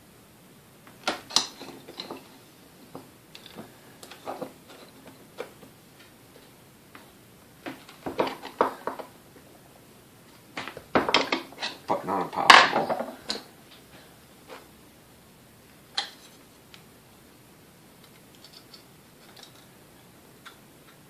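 Screwdriver clicking and scraping against a stuck brush-holder set screw in a Sunbeam Mixmaster motor housing, in scattered bursts with the busiest clatter a little past the middle, as the screw refuses to turn. A few metal tool clinks on the workbench.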